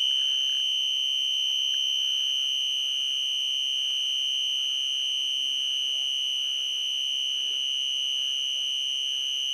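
An electronic alarm sounding one steady, unbroken high-pitched tone.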